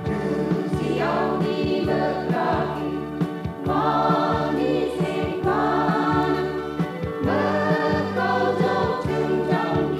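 A group of voices singing a Christian gospel song with band accompaniment, a steady beat and bass under the voices. The singing comes in about a second in, after an instrumental passage.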